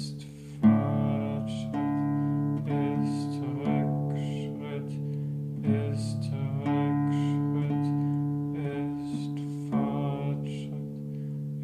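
Nylon-string classical guitar played in slow, ringing chords, a new chord struck roughly once a second with a short pause near the middle.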